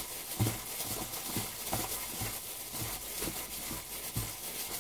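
Gloved hands squishing and turning chunks of raw olive flounder in egg white in a stainless steel bowl: soft, wet knocks about twice a second over a steady faint hiss.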